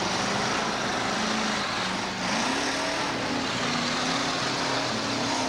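Demolition derby car engines running together in a dense wash of noise, one engine's pitch rising and falling as it revs.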